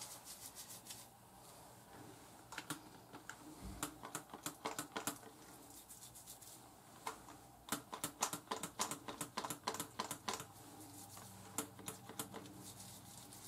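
Fingertips scrubbing and massaging a lathered scalp through short sisterlocks: faint, irregular runs of soft clicks that come in two clusters. There is a single low thump about four seconds in.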